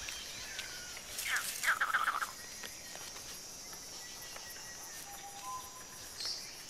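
Woodland savanna ambience: steady high insect trilling with bird calls over it, a burst of falling chirps about a second and a half in and a couple of short whistled notes near the end.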